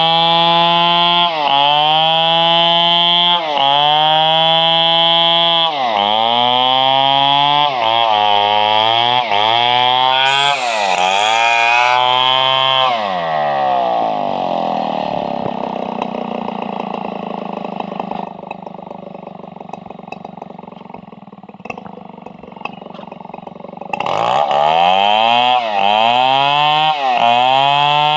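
Stihl 720 chainsaw running at high revs, its engine speed dipping and recovering every second or so. About halfway through it winds down to a quieter idle for several seconds, then is throttled back up to full speed near the end.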